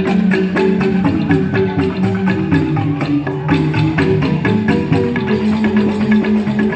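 Joged bumbung gamelan music: bamboo tube xylophones played fast in dense, busy mallet patterns, with percussion strokes running through.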